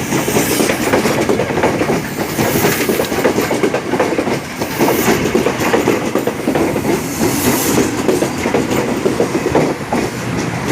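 A train running past, loud and steady, its wheels clacking over the rail joints.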